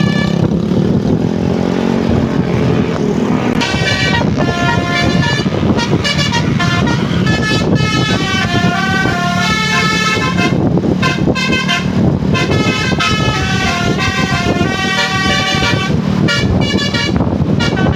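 Tour bus 'telolet' multi-tone horn playing a melody of short stepping notes, starting about three and a half seconds in and running on with brief breaks, over the low running of the bus engine.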